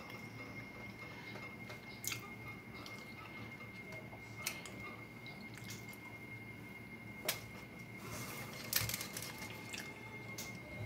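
Quiet eating sounds from someone chewing a fried chalupa: soft chewing with a few sharp wet mouth smacks spread through, and a short rustle near the end.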